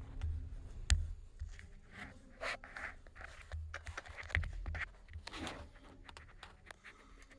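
Handling noise against an empty metal fuel tank: scrapes, rustles and light knocks as the camera moves in the tank's opening, with one sharp knock about a second in.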